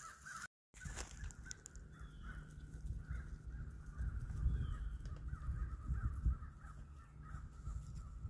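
Crows cawing in the distance, a faint continuing chorus, over a low uneven rumble close to the microphone.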